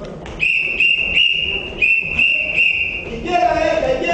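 A whistle blown in about six short blasts at one high pitch over some three seconds, followed near the end by voices.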